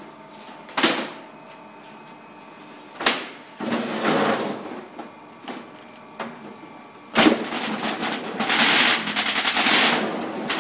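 Fruit-sorting conveyor line running with a steady motor hum, while small dark fruit clatter and rattle against metal parts of the machine. Sharp knocks come about a second in, three seconds in and seven seconds in, and a dense rattle follows the last one for about three seconds.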